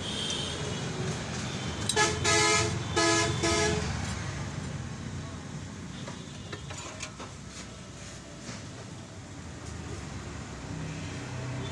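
4C diesel engine running with a steady low rumble, its turbocharger leaking oil. About two seconds in, a vehicle horn blows twice in short blasts, louder than the engine.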